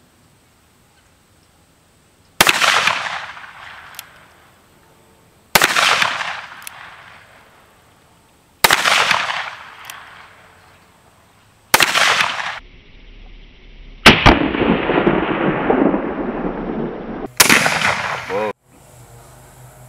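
Ruger Super Blackhawk .44 Magnum revolver fired four times, slow single shots about three seconds apart, each a sharp loud bang with a ringing echo trailing away. Later come two more loud bangs, the first followed by about three seconds of rushing noise.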